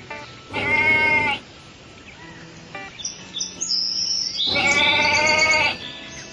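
An animal calls twice, each call about a second long and pitched, with faint high chirping between the calls.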